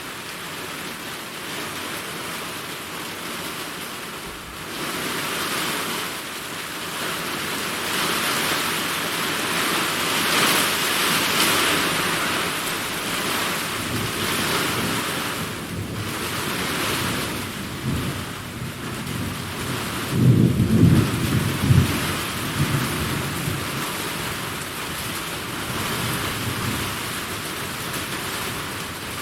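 Summer thunderstorm: steady heavy rain hissing, with a loud low rumble of thunder about two-thirds of the way through.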